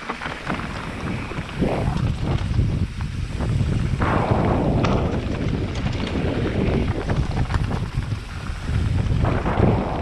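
Wind buffeting a helmet-mounted camera's microphone while a downhill mountain bike rolls fast over loose rocky trail, its tyres crunching on the stones with many small knocks. It gets louder about four seconds in.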